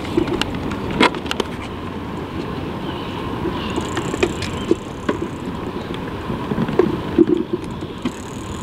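Steady outdoor wind and sea noise at the waterside, with scattered light clicks and knocks. The sharpest click comes about a second in.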